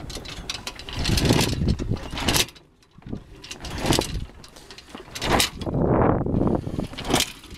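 A slack sailboat mainsail flapping and rustling as the boat rocks in swell with little wind, heard as irregular surges of rushing, crackling noise every second or so.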